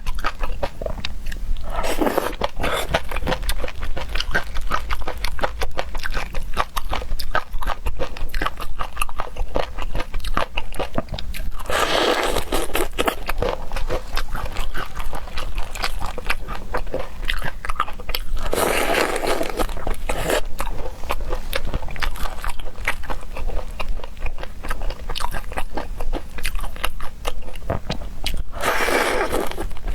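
A person chewing and crunching seafood (shrimp and octopus) with many small wet clicks, and louder crunchy bites four times, roughly every seven to ten seconds.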